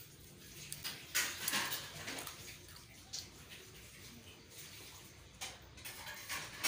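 Wet slurping and licking sounds of children eating ice cream cones, coming in short irregular bursts. The loudest bursts fall about a second in and again near the end.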